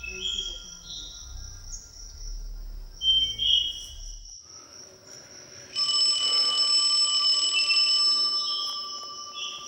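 Forest ambience: birds chirping and a steady high insect drone. Roughly six seconds in, a loud steady sound of several held high pitches starts abruptly and fades away about three seconds later.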